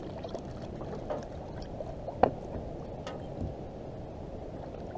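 Water lapping and gurgling against a kayak hull, with a few light clicks and one sharper knock a little over two seconds in.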